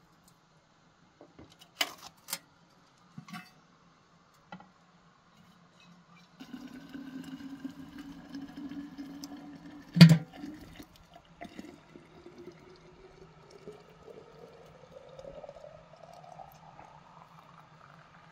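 Water pouring from the spout of a metal samovar into a metal thermos flask. The pitch rises steadily as the flask fills. A few metal clinks come first, and there is one sharp knock about ten seconds in.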